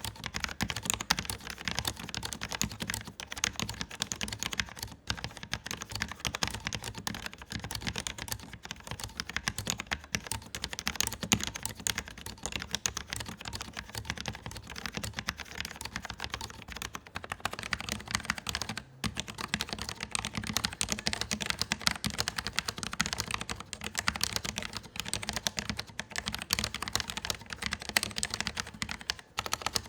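Continuous fast typing on a Cooler Master SK630 mechanical keyboard, with its low-profile Cherry MX Red switches and ABS keycaps: a dense, steady stream of key clicks and clacks.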